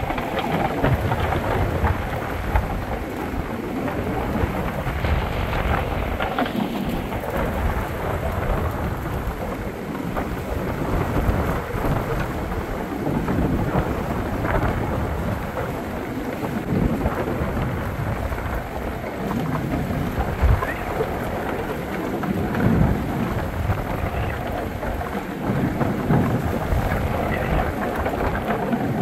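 Wind buffeting the microphone: loud, irregular low rumbles over a steady rushing noise, from being carried along in the open.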